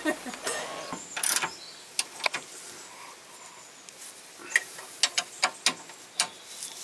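Socket ratchet clicking in short, irregular runs as the nut on a Land Rover Defender's Panhard rod mounting bolt is tightened by hand, with a combination spanner holding the bolt.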